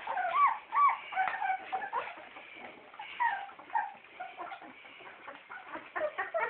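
A litter of young Daniff puppies squeaking and whimpering as they crowd onto their mother to nurse: many short, high squeals overlapping, the two loudest about half a second in.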